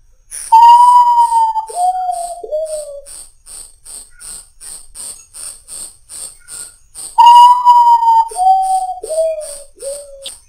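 Common potoo (urutau) singing its mournful lament: two phrases of clear whistled notes, each starting with a long note and falling step by step in pitch, the second phrase coming about six seconds after the first. A regular high-pitched pulsing, about three times a second, runs underneath.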